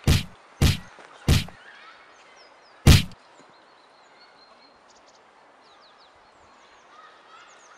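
Heavy punch impacts landing on a person on the ground, four in the first three seconds with the last the loudest, then quiet outdoor air with a few faint bird chirps.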